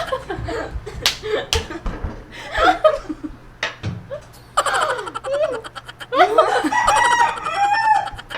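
People laughing and giggling in short fits, with a few sharp clicks about a second in.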